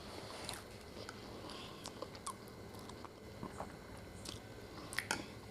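Faint close-up chewing and mouth sounds of a person eating a spoonful of rice, with scattered small clicks.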